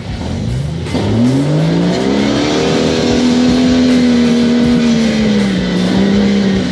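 Off-road vehicle engine revving up hard about a second in, holding at high revs, then easing off slightly near the end.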